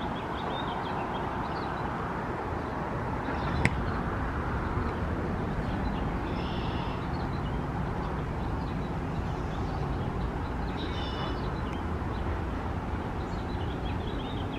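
Steady outdoor background noise with a low rumble, a sharp click a little under four seconds in, and birds chirping briefly twice.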